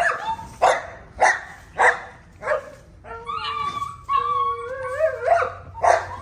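Tibetan mastiff puppies barking: a run of four high yapping barks about half a second apart, then a drawn-out whine that wavers in pitch, then more barks near the end.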